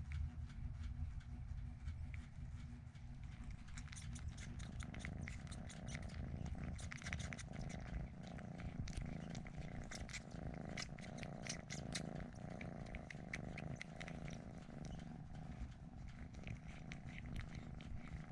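Ragdoll cat purring steadily close up, with many faint clicks and crackles scattered over the purr from about four seconds in.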